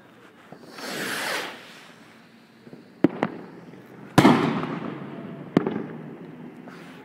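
A firework rocket launching with a brief hiss about a second in, then four sharp firework bangs over the next few seconds. The third bang is the loudest, and its echo trails off.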